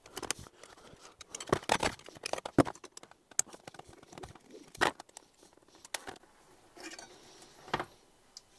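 Irregular clicks, taps and short scrapes of a screwdriver and metal fuel-pump parts knocking against a stainless steel tray as a Honda RC45's in-tank fuel pump assembly is taken apart to remove its fuel filter.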